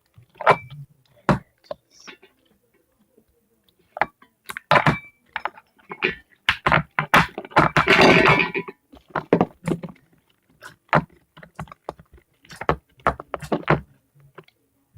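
Handling noise: a string of irregular taps, clicks and knocks as a container and small objects are picked up and set down, with a longer crackling rustle about eight seconds in.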